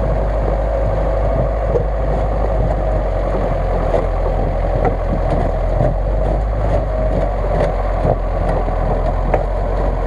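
GAZ-66 truck's engine running steadily under load as the truck churns slowly forward through deep mud and snow, its note wavering slightly, with a few faint knocks.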